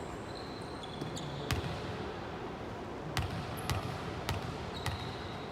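A volleyball rally: five sharp smacks of hands and arms on the ball, the first about a second and a half in and the other four coming faster, about half a second apart, near the end. Short high squeaks of sneakers on the court floor come in between, over the hum of a large gym hall.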